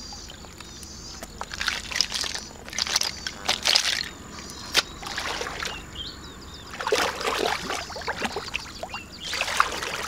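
Shallow muddy water splashing and sloshing in several short bursts as hands rummage in the mud and a plastic basket is moved through the water, with one sharp click about halfway through.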